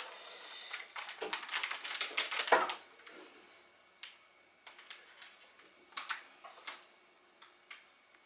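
Small sharp metallic clicks and scrapes of piston rings being worked by hand onto an aluminium piston: a dense run for the first three seconds, then scattered single clicks.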